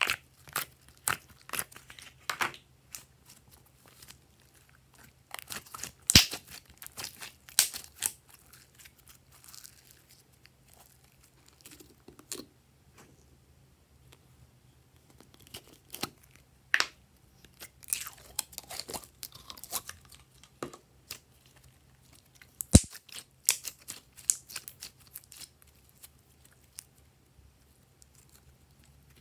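Slime being handled and pulled out of thin plastic containers: irregular crackling and crinkling in clusters, with quiet gaps. Two sharp knocks stand out, about six seconds in and again near 23 seconds.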